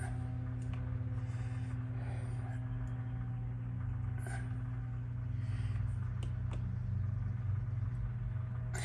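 A steady low hum, with a few light clicks and ticks of small parts and wire being handled.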